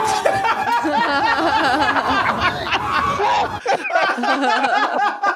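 Men laughing hard, several voices overlapping, over a low rumble that cuts off about three and a half seconds in.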